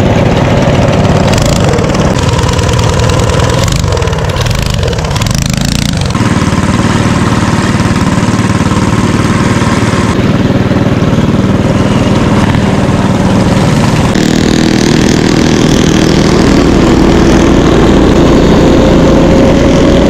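Small single-cylinder mini bike engines running, joined in quick cuts; over the last few seconds one bike speeds up, its engine note rising steadily.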